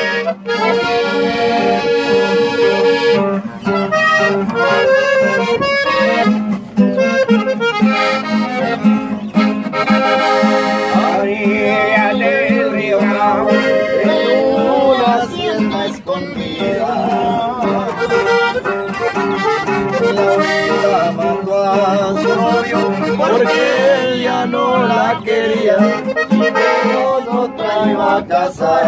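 Button accordion playing a melody, with a guitar accompanying it.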